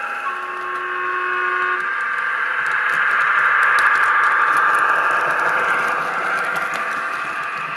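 Hornby Class 153 Sprinter model with a Legoman Biffo sound decoder passing close by. Its sound-fitted diesel engine and wheels on the track grow louder to a peak about halfway and then fade, with light clicks throughout.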